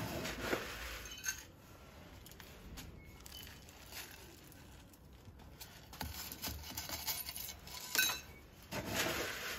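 Loose granular bonsai substrate being poured and worked into a plastic basket pot, the grains rattling and clinking against each other and the plastic. There is a burst at the start, then quieter handling, and more rattling in the last few seconds with one sharp click near the end.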